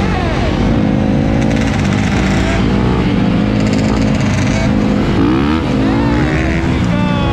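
Motorbike engines running, with one revving up sharply about five seconds in.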